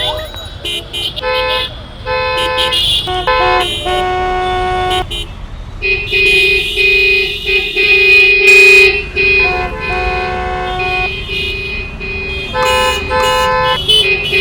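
Many vehicle horns honking in traffic, several pitches overlapping in short and long blasts over a steady low traffic rumble.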